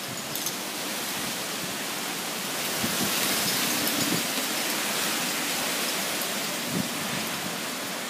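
Strong wind rushing through trees, a steady hiss that swells about three seconds in and eases off again.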